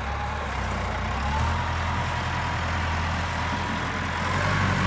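Farm tractor's diesel engine working under load as it strains on a tow strap hooked to a minivan's catalytic converter. A steady low drone carries a thin whine that rises a little just over a second in.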